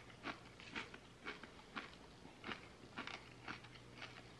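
Faint crunching of a hot chip being chewed with the mouth closed, about two crunches a second.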